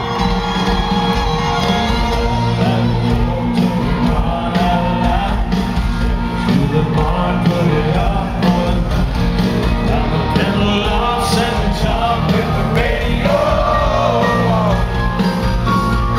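Live country band playing a song at full volume, with a male voice singing over it and the crowd shouting and whooping.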